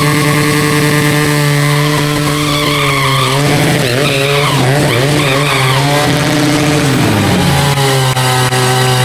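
Sport motorcycle engine held at steady high revs during a burnout, the rear tyre spinning on the tarmac. The revs dip and surge several times in the middle, then hold steady again.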